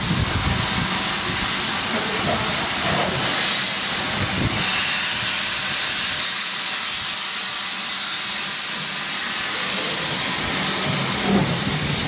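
Southern Railway U class 2-6-0 steam locomotive 31806 hissing steadily, with steam blowing from around its cylinders as it moves slowly off.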